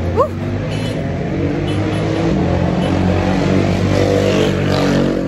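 Street traffic: a motor vehicle's engine running and slowly getting louder as it comes by, with a brief rising chirp near the start.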